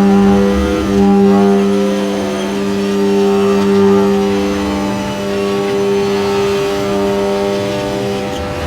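Background electronic music: sustained synth notes over a gritty drone, the upper notes changing in steps every second or two.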